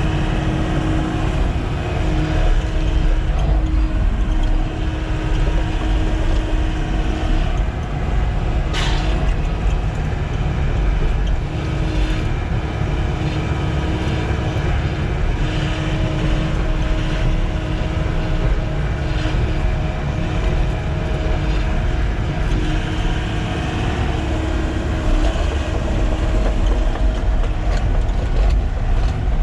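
Sany SY95 excavator's diesel engine running steadily under working load, with a hum that comes and goes over the rumble as the hydraulics work. A single sharp knock about nine seconds in.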